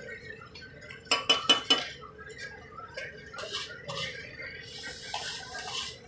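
A steel spatula clanks four times in quick succession on a large iron tawa a bit over a second in, then scrapes and turns mutton liver pieces in hot oil. From about five seconds in the hot oil sizzles steadily.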